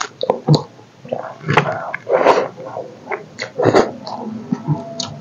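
Close-up eating sounds of rice and chicken curry eaten by hand: wet chewing and lip smacks as a run of short clicks, with a few louder mouth noises about every second and a half.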